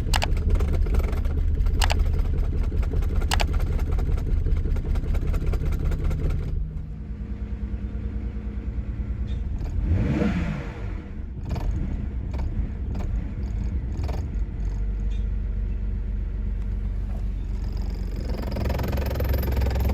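BMW 328i engine running just after catching, following a long no-start, with a few sharp clicks in the first couple of seconds. About six and a half seconds in its sound drops to a steadier, quieter run. It revs briefly about ten seconds in and picks up again near the end. Old fuel is suspected of keeping it from running cleanly.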